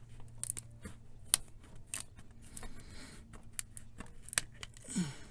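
A new plastic bottle of power steering fluid being handled at its cap and seal: a scatter of sharp plastic clicks and taps, with a short scraping rasp near the end.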